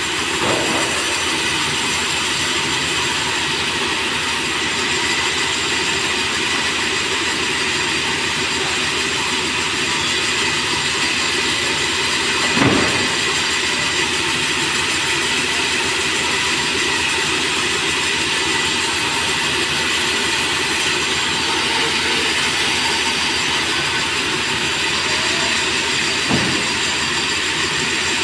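Sawmill band saw running steadily as merbau timber is fed through it, a constant loud mechanical noise. A sharp knock comes about halfway through, with smaller ones just after the start and near the end.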